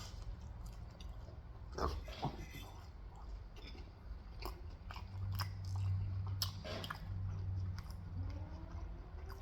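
Close-up chewing and biting on Korean fried chicken: scattered crisp crunches and wet mouth clicks, with a low steady hum for a few seconds midway.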